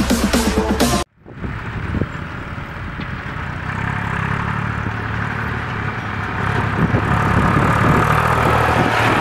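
Electronic dance music that cuts off abruptly about a second in, followed by a Massey Ferguson 255 tractor's diesel engine running steadily as it drives, getting louder as it comes close.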